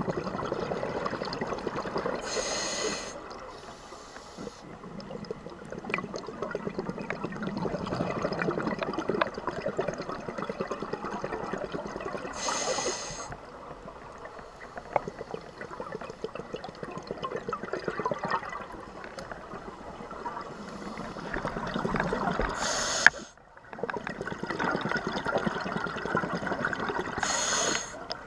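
Scuba diver breathing through a regulator, heard underwater. Long spells of bubbling, crackling exhaled air are broken four times by a short hiss of inhaling.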